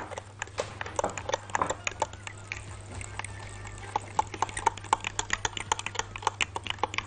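A spoon stirring a thick marinade of tomato paste, oil and spices in a glass measuring jug, clicking and tapping against the glass several times a second.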